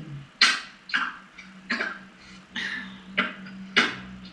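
About six short, sharp snaps and clicks, roughly one every half-second to second, as tight-fitting plastic pieces of a cat toy's ball-track tower are pressed together, over a steady low hum.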